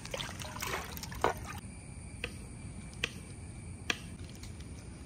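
Hands stirring and lifting water in a steel pot, with brief splashing. Then a knife cutting tomatoes on a plastic cutting board, three sharp taps a little under a second apart.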